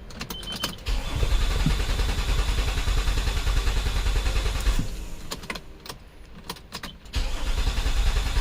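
2007 Nissan Murano's 3.5-litre V6 cranking on the starter without catching: a crank-no-start. It cranks from about a second in, stops briefly, and cranks again near the end.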